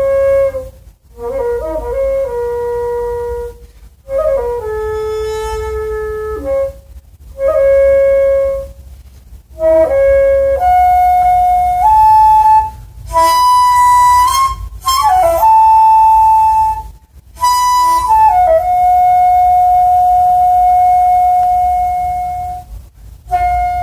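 Daegeum, the Korean large bamboo transverse flute, played solo: a slow melody of long held notes with short breath pauses between phrases. It climbs to its highest, brightest notes in the middle, then settles on one long held note near the end.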